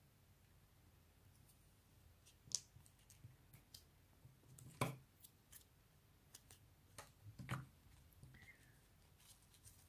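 Faint rustling and small clicks of a ribbon bow being handled and stitched with needle and thread, with a few sharper clicks, the loudest about halfway through.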